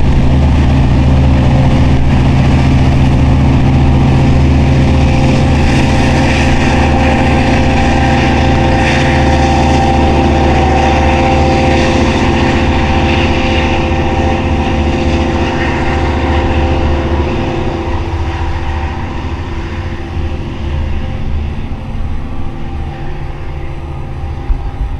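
Long Island Rail Road DM30AC diesel locomotives running under power as the train pulls away: a steady engine drone with a few held tones that fades over the last several seconds.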